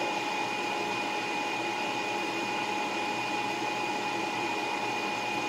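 Steady hum of a running appliance motor, with a thin high whine held over it.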